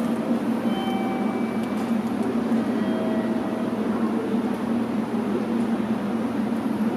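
Steady low hum and rumble of a railway station platform, with a few faint short tones above it.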